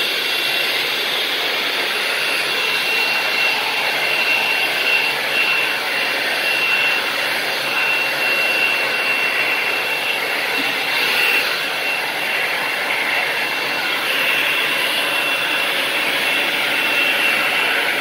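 Hand-held hair dryer running steadily, a rush of air with a thin high whine through it.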